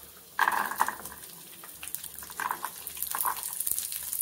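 Peeled garlic cloves tipped into hot oil in a nonstick pan: a sudden burst of sizzling and spattering about half a second in, with two shorter bursts near the end.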